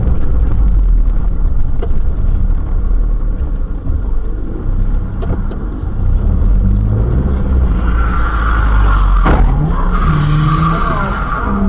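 Dash-cam recording from inside a moving car: loud, steady low rumble of engine and road noise. A high squeal comes in about eight seconds in, and there is a single sharp bang about nine seconds in.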